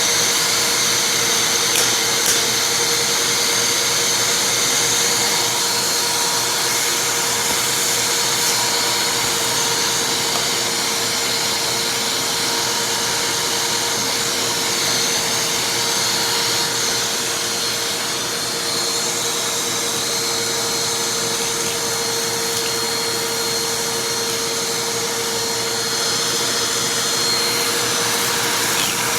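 Vacuum cleaner running steadily, a continuous rush of air with a constant motor whine.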